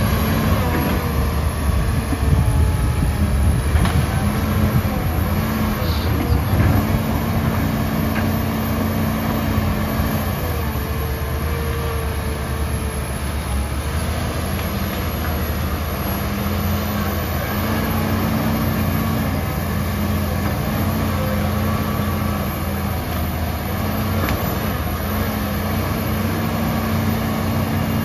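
Komatsu PC150-5 hydraulic excavator's diesel engine running steadily under working load, with a low hum that swells and drops away in stretches of a few seconds as the arm and bucket work. A few faint knocks sound now and then.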